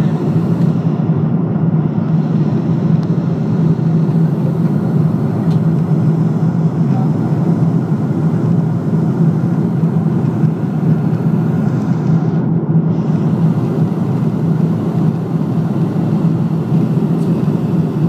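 Passenger aircraft cabin noise in flight: a steady rushing drone of engines and airflow with a strong low hum underneath.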